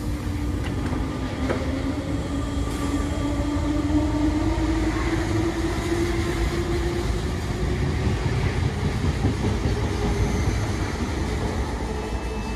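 RER electric multiple unit running past on the next track: wheels rumbling on the rails under a motor whine that rises slightly in pitch through the first half.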